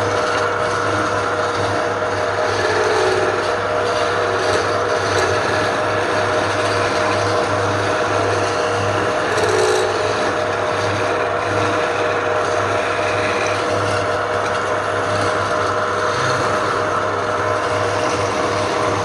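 Power tool running steadily, with a continuous rubbing, scraping noise of wood being worked over its motor hum.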